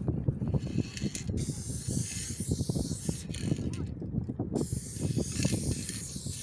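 Aerosol spray paint can hissing in long spurts as a tag is sprayed onto a concrete wall. The spray starts about a second in and is broken by short pauses, over a low rumble.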